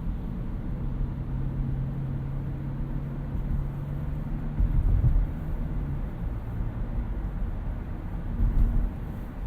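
2018 Toyota Auris Touring Sports 1.8 Hybrid driving: a steady low hum over road rumble, the hum dropping away about six seconds in. Two brief low thumps come about halfway through and near the end.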